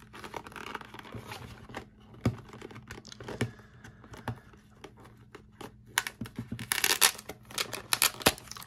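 Hands working open a trading-card box and its foil-wrapped pack: scattered small scratches and clicks of card stock and wrapper, then a louder, denser run of crinkling and tearing about six seconds in.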